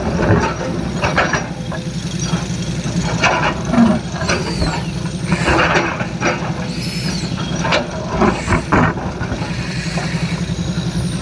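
Excavator's diesel engine running steadily, with irregular clanks and rattles and two brief high squeals about halfway through.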